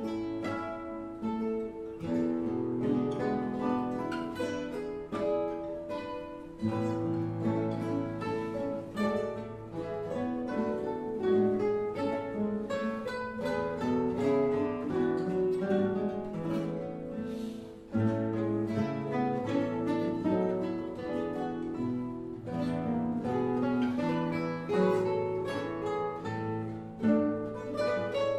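Classical guitar ensemble, about ten nylon-string guitars, playing a three-part arrangement of a barcarolle, a continuous flow of plucked notes over a bass line. The music eases briefly about two-thirds of the way through, then comes back fuller.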